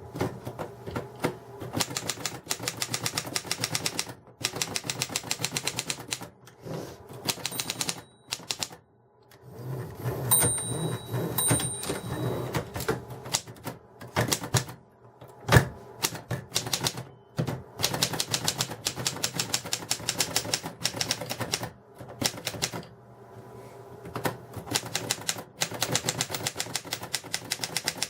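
Keys of a 1961 Erika 10 portable manual typewriter being struck in quick runs of clacks, broken by a few short pauses, with one louder single clack about halfway through.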